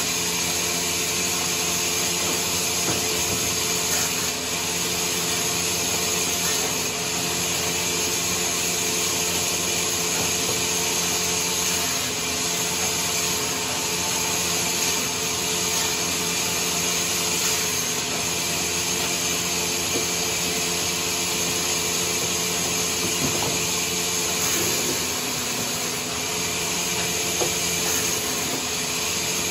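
Sawmill saw running steadily through wood, a constant high hiss over the steady hum of its motor.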